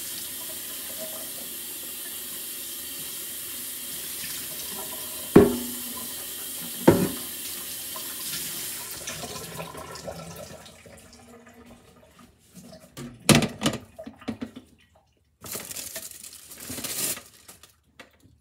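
Tap water running into a kitchen sink as a slow cooker's removable stoneware pot is rinsed out, with two sharp knocks about five and seven seconds in. The water stops about ten seconds in, and a few knocks and clatters of handling follow.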